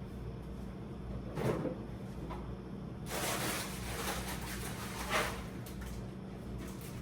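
Groceries being handled while a fridge is stocked: a single knock about a second and a half in, then a few seconds of noisy scraping and rustling with a sharper bump near the end of it.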